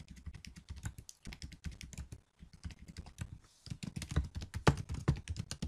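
Fast typing on a computer keyboard: a quick, uneven run of key clicks with a short pause about two and a half seconds in.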